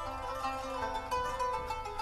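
Background music: a quick melody of plucked string notes.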